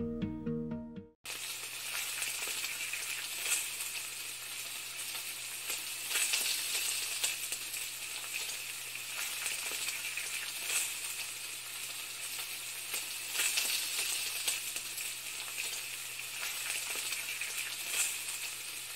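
A second of plucked-string background music that cuts off abruptly, followed by a steady crackling hiss with scattered pops and a faint low hum underneath.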